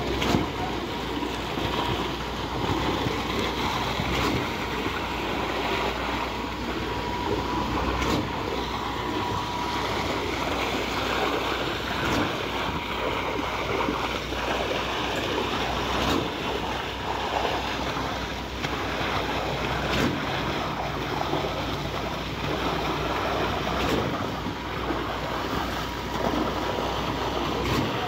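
Truck-mounted concrete boom pump running, with wet concrete pouring from the end hose and splashing onto the rebar-mesh slab. A faint knock comes about every four seconds.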